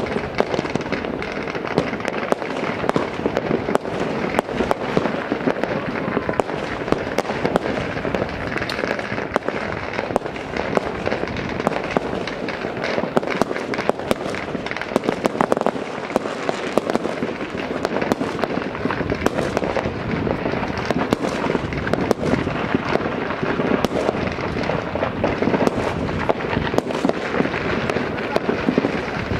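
Many fireworks going off at once, a dense and unbroken crackle of overlapping bangs and pops.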